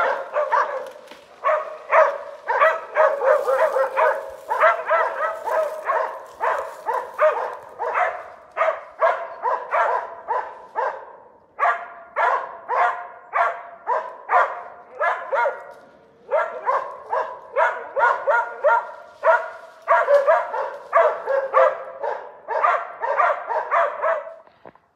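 Laika hunting dogs barking rapidly and without let-up, with two short breaks, baying at a black bear they have treed.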